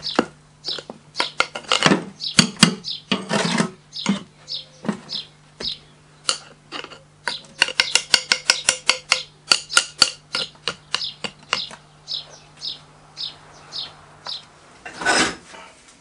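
A metal rod jabbing into moulding sand and clinking against a freshly poured casting as it is dug out of the mould: irregular sharp metallic taps and clicks, with a quick run of them about eight seconds in, over a low steady hum.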